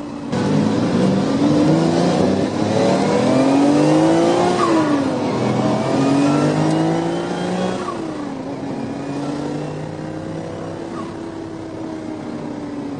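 Bugatti quad-turbocharged W16 engine accelerating hard. The pitch climbs and then drops sharply at two upshifts, about five and eight seconds in. After that it runs on more steadily and a little quieter.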